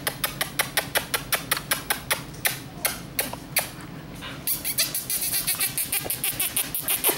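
Rapid, evenly spaced clicking, about five clicks a second. From about four and a half seconds in it turns faster and hissier, then stops abruptly.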